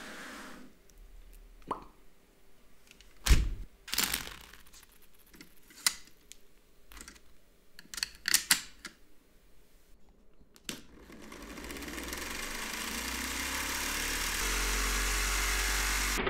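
Scattered clicks and knocks of Lego parts and a pencil being handled, then, about eleven seconds in, the Lego launcher's electric motors spin up its large rubber-tyred flywheel: a whir that rises in pitch and grows steadily louder.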